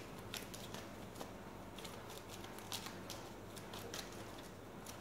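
Game cards being handled and thumbed through in the hand: faint, irregular crisp clicks and rustles, about a dozen over a few seconds.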